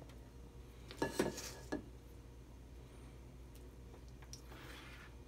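Small metal spoons clinking and scraping against a stainless steel mixing bowl and a metal cookie sheet while scooping cookie dough: a few clinks about a second in, one with a short ring, and fainter scraping near the end.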